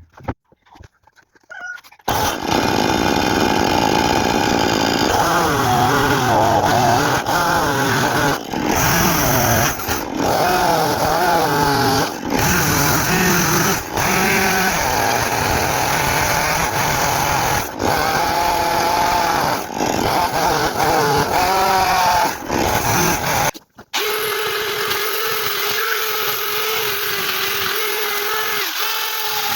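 Chainsaw cutting a log, its engine rising and falling in pitch under load with brief breaks, then running at a steady lower speed for the last several seconds.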